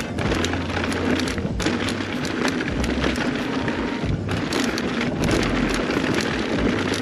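Mountain bike being ridden over a rough dirt trail: steady tyre noise on loose ground, with frequent sharp rattles and clacks from the bike over the bumps.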